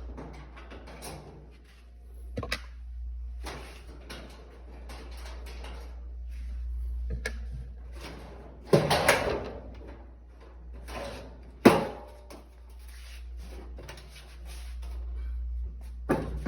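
Irregular knocks, clunks and scraping of parts being handled during a clothes dryer repair. There is a sharp click about two and a half seconds in, and the loudest clunks come near the middle and about twelve seconds in, over a steady low hum.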